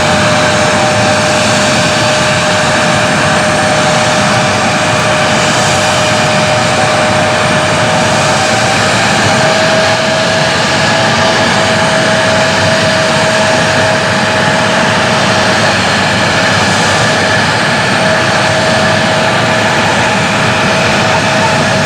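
Airliner engines running on the ground with a steady whine over a loud roar; the whine rises slightly in pitch about halfway through.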